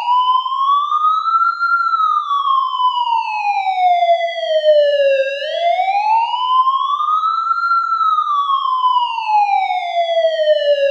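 Ambulance siren sounding a slow wail: the pitch rises for about two seconds, then falls for about three, twice over.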